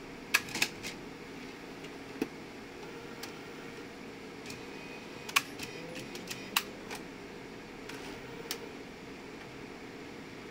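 Epson PP-100II disc publisher's transfer mechanism moving a disc, with sharp clicks and clacks: a quick cluster at the start, one about two seconds in, several between five and seven seconds, and one more near the end. A steady machine hum runs underneath.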